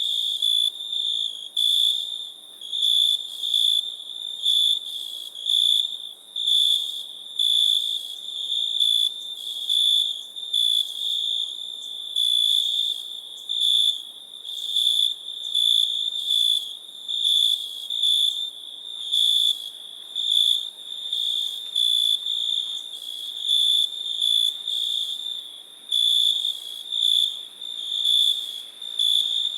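Crickets chirping: a high, thin trill repeated in short pulses about once or twice a second, steady throughout.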